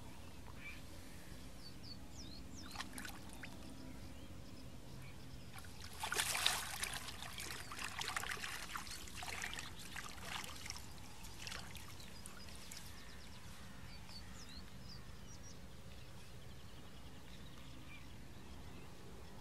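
Shallow lake water splashing and trickling as a pike is released by hand, a burst of splashing starting about six seconds in and dying away over the next few seconds.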